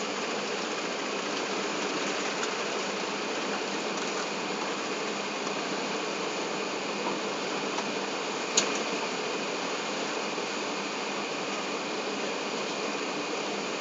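Steady cabin noise of an Airbus A380 climbing after takeoff, heard from inside the cabin: engine and airflow noise. A single sharp click a little past halfway through.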